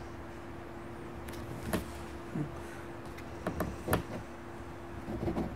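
Fine-tipped ink pen flicking short strokes on sketch-pad paper: a handful of quick scratches about two seconds in, a cluster near four seconds and more near the end, over a steady low hum.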